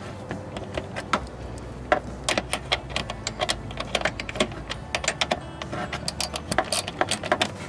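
Small ratchet with an 8 mm socket clicking in quick runs as it drives a bolt down into the radiator's plastic mount, starting about two seconds in.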